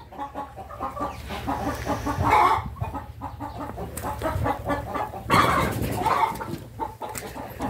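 Chickens clucking, with several louder calls standing out.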